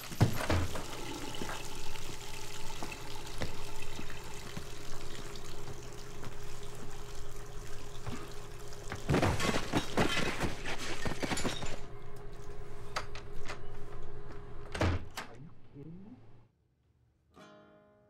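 Loud, steady rushing of water with a steady hum under it, louder for a few seconds in the middle. A thump comes right at the start and another about fifteen seconds in, then the sound cuts off suddenly.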